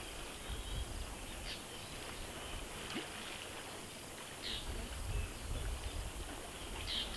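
Outdoor ambience: a low, uneven rumble of wind on the microphone, with three faint, short bird chirps about three seconds apart.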